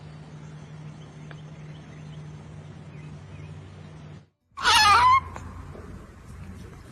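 A steady low hum with faint background noise that cuts off, then after a short gap a single loud, brief, wavering animal cry, followed by quieter background noise.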